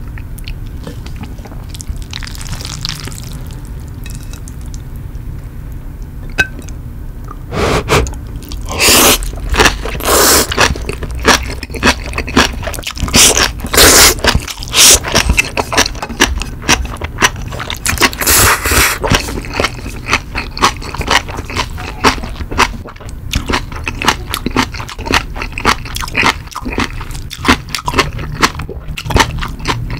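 Close-miked eating of Jjapaghetti noodles with green onion kimchi. It is quiet handling for the first several seconds, then loud slurps from about eight seconds in, then steady wet chewing with crunches.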